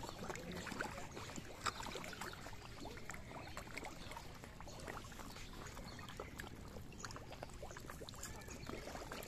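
A crowd of koi carp splashing and gulping at the surface of a pond as they feed: a dense patter of small splashes and wet pops, with one sharper splash about two seconds in.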